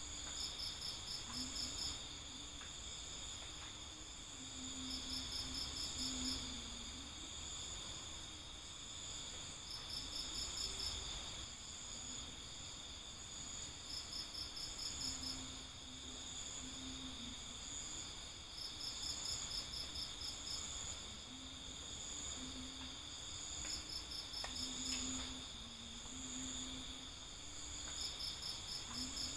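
Insects chirping: a steady high-pitched chorus with a louder rapid pulsed chirp recurring about every four to five seconds.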